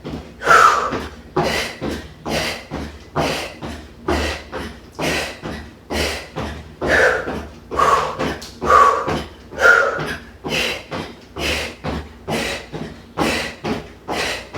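A woman breathing hard and forcefully during a workout exercise, one sharp exhale a little more often than once a second, keeping an even rhythm.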